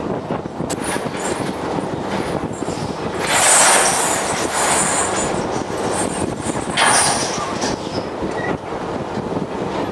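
Steady mechanical din of a beam trawler's machinery running, with a louder burst of harsh hiss about three seconds in and a shorter one near seven seconds.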